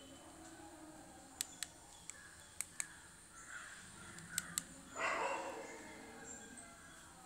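Feature-phone keypad keys clicking faintly under a thumb: a few short, sharp clicks spread out as the keys are pressed. A louder, rough sound lasting about a second comes about five seconds in.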